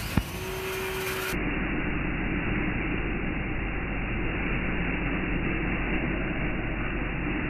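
A steady, even rumbling noise with a low hum, starting suddenly at a cut, with a brief steady tone in the first second.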